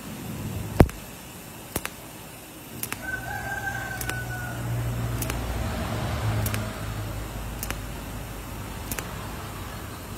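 A rooster crows once, about three seconds in. Under it runs a steady hiss with sharp clicks about once a second, and a low hum swells in the middle.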